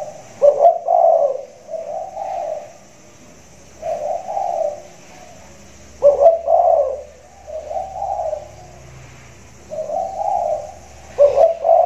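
Spotted dove cooing: low, repeated coos in phrases, each phrase opening with its loudest note, three phrases about every five to six seconds. The uploader calls this bird's song 'suara besar', a big, deep voice.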